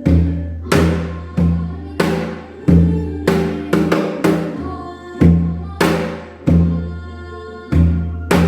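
Janggu, the Korean hourglass drum, playing the semachi jangdan in a lilting triple rhythm. Deep booming strokes on the bass head alternate with sharp cracks of the stick on the other head, about one to two strokes a second.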